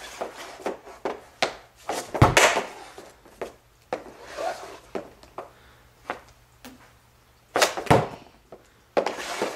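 Hockey stick knocking against a rubber puck on plastic dryland flooring tiles: a string of light taps and clicks as pucks are handled and shot at a canvas target. There are harder knocks about two seconds in and again near eight seconds.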